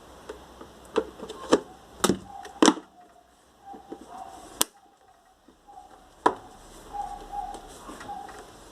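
A series of sharp, irregular clicks and knocks, about six, from objects being handled and set down. The loudest comes about two and a half seconds in, with faint short tones between them.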